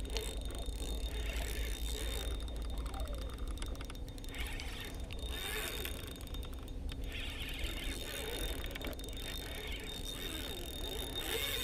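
Shimano spinning reel being cranked while fighting a hooked salmon: the gears whir with fine, rapid clicking as line is wound in.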